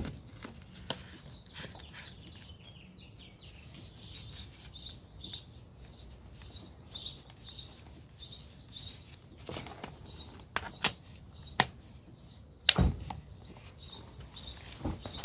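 A bird chirping over and over in short high calls, about two a second, with a few sharp knocks and clicks among them, the loudest about three-quarters of the way through.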